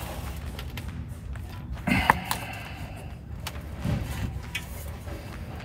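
Metal handling noise from fitting a stainless steel exhaust pipe into place under a car: a sharp knock about two seconds in with a brief scrape, then a few softer knocks, over a steady low hum.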